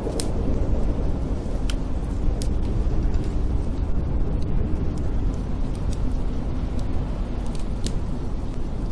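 Wood fire crackling with scattered sharp pops, over a steady low rumble of blizzard wind.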